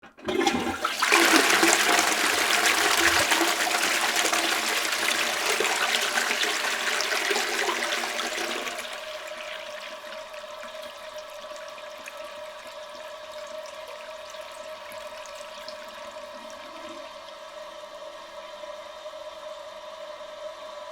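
Toilet flushing: a loud rush of water for about eight seconds, then dropping to a quieter steady hiss with a faint steady tone as the tank refills.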